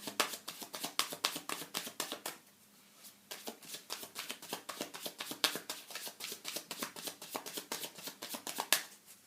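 A deck of tarot cards being shuffled by hand: a rapid run of papery card flicks and slaps, pausing briefly about two and a half seconds in before the shuffling resumes.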